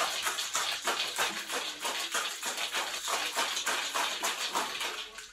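Metal cocktail shaker shaken hard, its contents rattling in a steady rhythm of about three to four strokes a second. The shake is whipping the egg whites in the drink into a foam.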